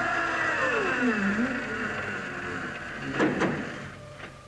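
Cartoon soundtrack effect: a held, horn-like chord of several tones that slides down in pitch over about a second and dies away. A short rustling burst follows about three seconds in.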